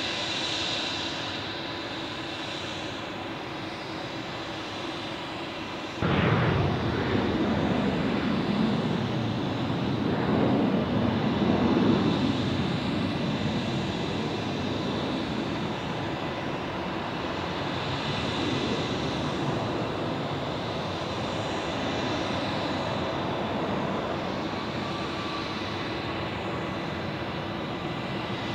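Jet airliner engines: a Boeing 767-400ER's engines run steadily with a faint whine as it rolls along the runway. About six seconds in there is an abrupt switch to the louder noise of a landing Boeing 777-300ER's GE90 engines, whose pitch sweeps as it passes and then settles into a steady rush around touchdown.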